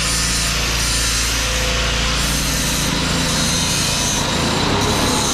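A powered sharpening grinder running steadily against steel cutting tools, a continuous grinding hiss over a low motor hum.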